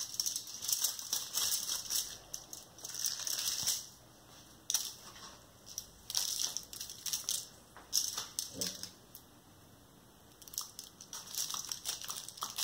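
Coarse crystal sugar crunching and scraping in repeated short bursts as a sugar-coated block of banana candy is cut with a knife.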